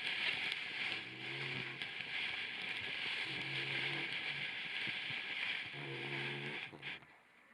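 Labrador puppy snoring, three low rattling snores about two and a half seconds apart, under a louder steady hissing rustle that stops near the end.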